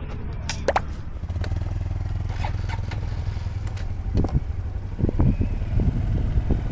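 Honda Cross Cub 110's single-cylinder four-stroke engine running steadily, with scattered short knocks and clatters over it.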